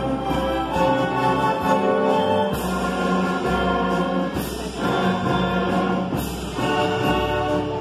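Youth string orchestra, violins to the fore, playing full held chords, with three strong accents about two seconds apart.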